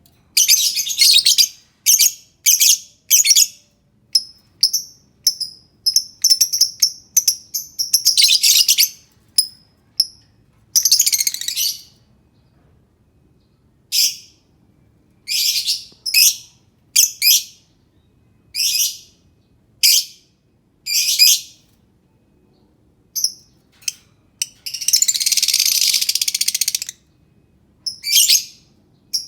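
Lovebird calling: many short, sharp, high-pitched chirps in irregular bursts, with a few longer chattering runs, the longest about two seconds, a little before the end.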